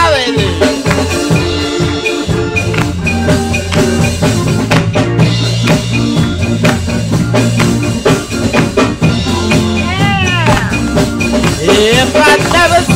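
Gospel choir music: organ and bass hold sustained chords under a steady drum-kit beat. A singer's voice swoops in with a wavering run about ten seconds in, and again near the end.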